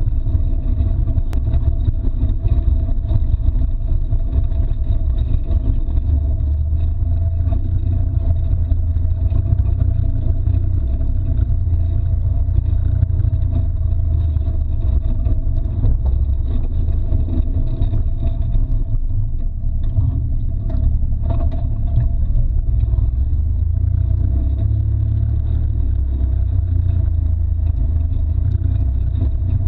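Can-Am Maverick X3 side-by-side driving over a rough dirt trail: a steady low engine and drivetrain rumble, with a few short knocks from the rough ground about two-thirds of the way through.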